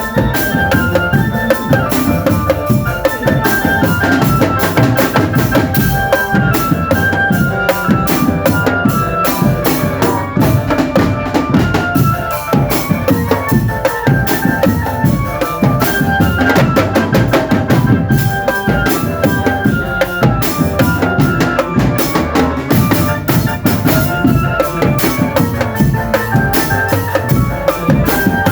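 Marching drum band playing: snare and bass drums beating a fast, busy rhythm, with a melody of short pitched notes over them.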